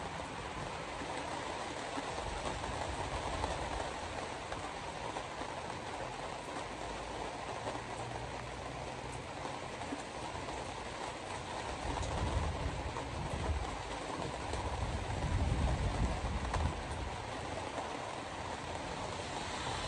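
Steady road and tyre noise inside a moving car on a wet road, with a deeper rumble that swells twice in the second half.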